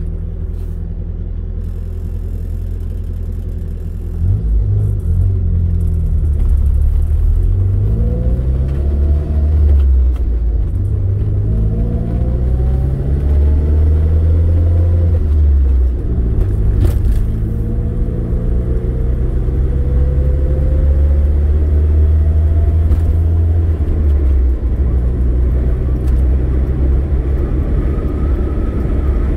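Car engine and road noise heard from inside the cabin: idling at a stop, then pulling away about four seconds in and accelerating, its pitch rising and dropping back several times as it shifts up through the gears, before settling into steady cruising.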